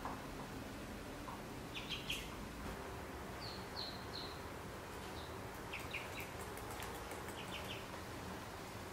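Ducklings peeping in short, high, scattered calls, with a run of three falling peeps about four seconds in.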